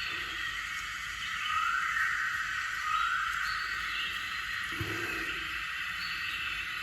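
Steady background chorus of insects and birds, with two short rising chirps about a second and a half and three seconds in, and a soft low thud near the five-second mark.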